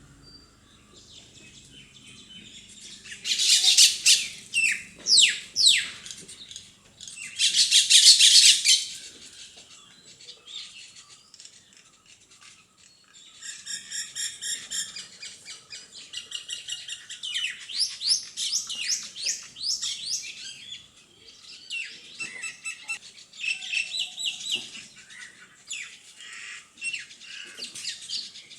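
Parrots calling: two loud, harsh screeches a few seconds apart with sharp falling call notes between them, then, from about halfway, a run of rapid, high chattering chirps.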